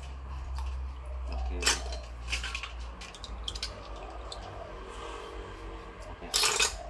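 Gong gong sea snail shells clinking against a stainless-steel bowl and an enamel pot as they are lifted out of soaking water and dropped in. Scattered clicks, with a sharp one a little under two seconds in and the loudest clatter near the end.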